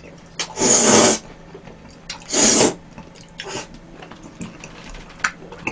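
Noodles slurped in from a bowl of red bean porridge: two long slurps about a second and a half apart, each lasting about half a second, followed by faint chewing and small clicks.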